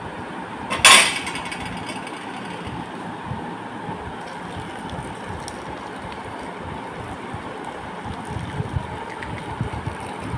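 One sharp knock or clink about a second in, the loudest sound here, then steady background noise with a few soft low thumps near the end.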